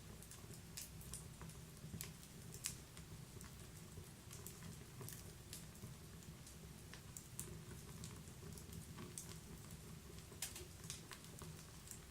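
Wood fire burning in a wood-burning stove: irregular sharp crackles and pops over a low steady rumble.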